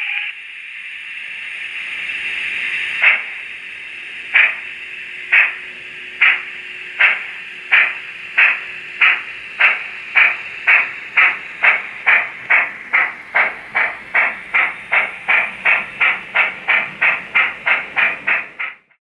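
Digital sound of a model GWR 45XX 'Prairie' 2-6-2T steam tank locomotive played through its small onboard speaker: a whistle ends right at the start, then a steady steam hiss swells. About three seconds in the exhaust chuffs begin slow and quicken steadily as the engine pulls away, then cut off suddenly near the end.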